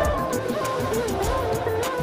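Background music with a wavering melody over a steady beat.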